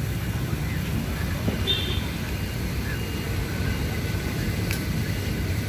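Steady low rumble of street traffic, with a faint short high tone about two seconds in and a single click near the end.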